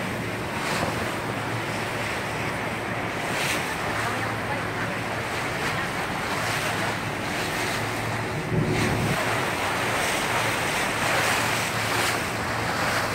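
Small motorboat running across choppy river water: wind buffeting the microphone and water rushing and splashing against the hull in a steady, dense noise, with a slightly louder surge about two-thirds of the way through.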